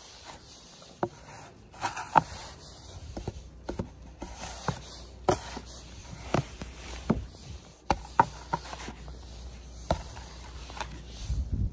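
Snow crunching in short, irregular bursts as a mittened hand digs and scoops packed snow off a buried car's windshield.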